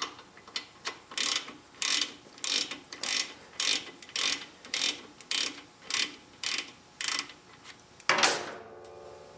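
Hand ratchet with a 5/8-inch socket clicking in short runs, about one back-stroke every 0.6 s, as it loosens the oil drain plug on a Harley-Davidson Softail. About eight seconds in, one louder metallic clank that rings briefly.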